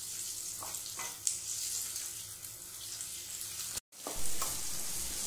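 Chopped onions and ginger-garlic paste sizzling in mustard oil in a non-stick kadhai, stirred with a spatula that clicks and scrapes against the pan a few times. This is the stage where the paste is fried until it loses its rawness. The sound cuts out briefly a little under four seconds in.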